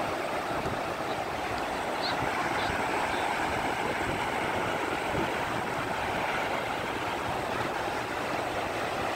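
Ocean surf breaking and washing over a shallow beach: a steady rushing noise.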